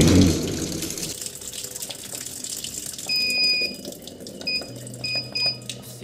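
Water pouring into the tub of a Polytron top-load washing machine as it fills. About three seconds in, the control panel gives one long electronic beep, then several short beeps near the end as its buttons are pressed, with a low hum under them.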